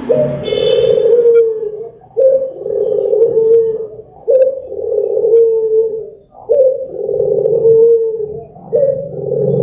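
A puter (domestic Barbary dove) cooing in long, drawn-out calls, one about every two seconds. Each call dips slightly in pitch.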